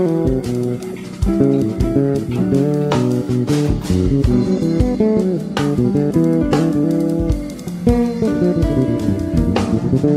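Background music: plucked guitar over bass, with a few sharp drum hits.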